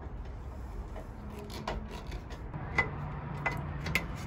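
Stainless quarter-20 screws being turned by hand into an aluminum beam and the rod holder mounts on it being handled: faint scraping and rubbing with a few sharp clicks, most of them in the second half.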